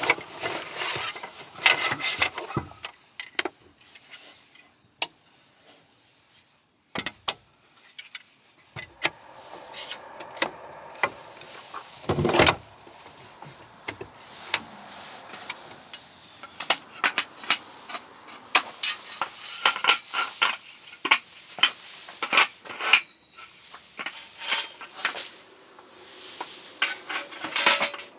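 Irregular clinks and knocks of dishes and utensils being handled, with a short near-quiet pause about a fifth of the way in and a brief louder scraping noise near the middle.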